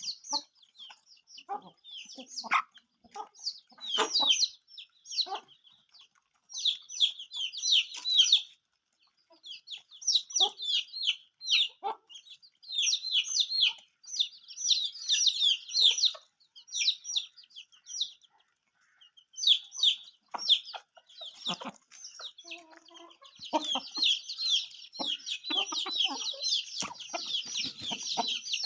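Aseel chicks peeping: many short, high-pitched cheeps in clusters with brief pauses, becoming a dense, continuous chorus near the end, with occasional soft knocks underneath.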